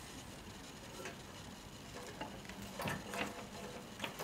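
Faint rustling and scattered light clicks as the Stuart W4000 water still's heater cable is pulled through the hole in the boiler stand's base, with a few sharper ticks about three seconds in.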